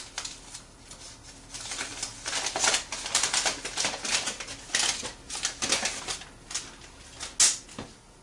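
Rapid plastic clicks and rattles from hands handling the housing and parts of an alarm control panel, thickest through the middle, with one sharp, louder click near the end.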